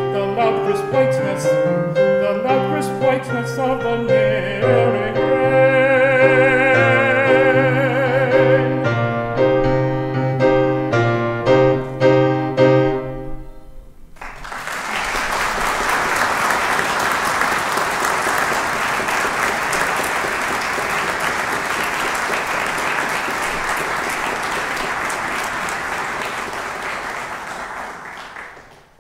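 Piano playing the closing bars of a choral piece, joined midway by a sung held note with vibrato, the music ending about 13 seconds in. Then audience applause, steady, fading out near the end.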